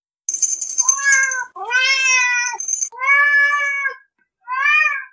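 A domestic cat meowing four times in a row: three drawn-out meows and a shorter fourth, each separated by a brief pause.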